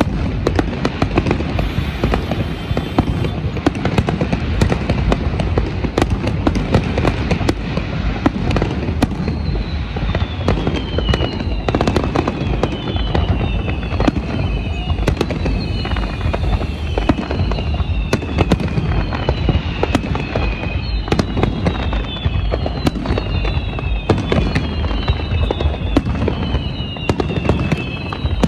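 Large fireworks display: dense, continuous bangs and crackling shell bursts over a low rumble. From about ten seconds in, a run of repeated falling whistles joins them.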